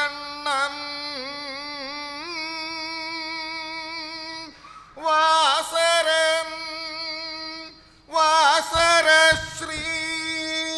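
Koodiyattam accompaniment music: one held melodic tone that wavers slightly in pitch, with louder bursts of percussion strikes about five and eight seconds in.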